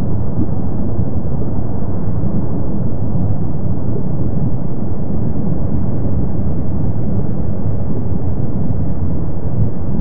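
Kilauea's lava fountains erupting in the crater lava lake, heard as a steady low rumble with no separate bursts or pops.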